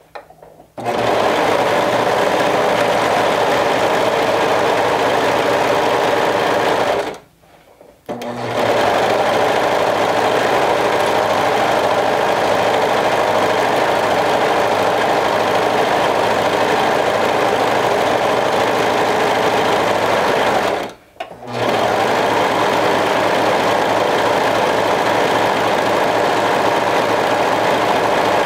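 Brother 1034D serger (overlocker) running at a steady speed, stitching a seam through fabric. It starts about a second in and stops briefly twice, around seven seconds in and again around twenty-one seconds in.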